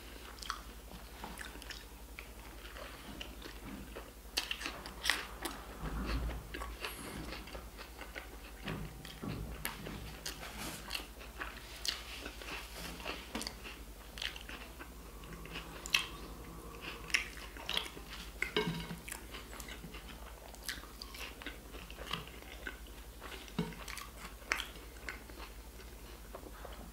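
A man biting and chewing a burger close to the microphone: irregular small wet mouth clicks and soft crunches.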